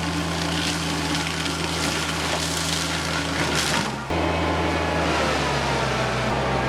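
Engine-powered land-clearing machinery running steadily, with bursts of harsher noise over the first few seconds. About four seconds in the sound cuts to another engine, whose pitch creeps slightly upward.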